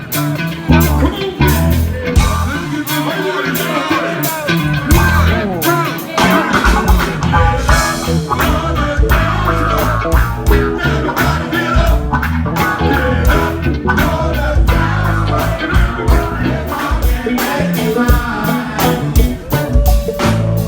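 Live funk band playing a song with a steady drum beat, heavy bass and singing.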